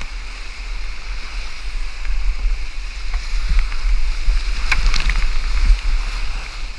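Whitewater rapids rushing around a kayak as it runs down the creek: a steady roar of churning water with a heavy low rumble. A brief cluster of sharp splashes comes about five seconds in.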